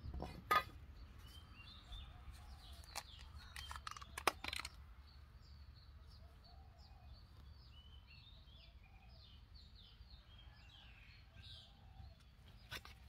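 Small birds chirping in short, high calls, thickest in the middle of the stretch, over a steady low outdoor rumble. A few sharp knocks stand out, once about half a second in and a cluster around three to four seconds in, while the soil of the garden bed is being worked.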